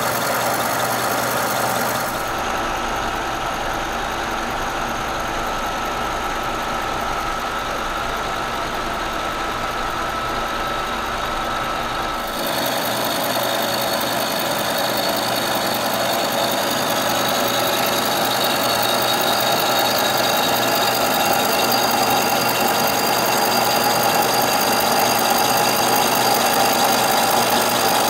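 Kearney & Trecker milling machine running a carbide-insert face mill across a raw cast iron straight edge casting, taking a 30-thousandths cut fed at 10 inches a minute: a steady machining noise. Its tone changes abruptly about 2 seconds in and again about 12 seconds in, and it grows slightly louder towards the end.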